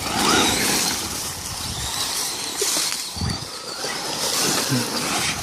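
Radio-controlled trucks, a brushless Traxxas Slash 4x4 and an HPI Mini Recon, driving over rough ground: a steady noise of tyres and electric motors.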